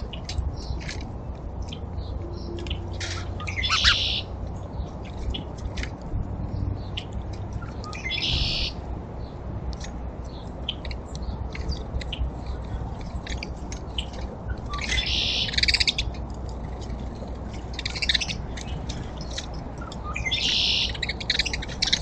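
Small backyard songbirds chirping over and over, with denser bursts of calling about four, eight, fifteen and twenty seconds in, over a low steady background rumble.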